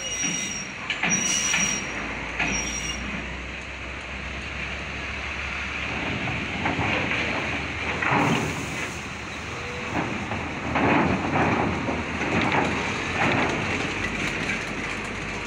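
Heavy trucks driving off a ferry onto the steel ramp: diesel engines running with irregular clunks and rattles as the wheels roll over the ramp plates. Brief high squeals sound in the first few seconds.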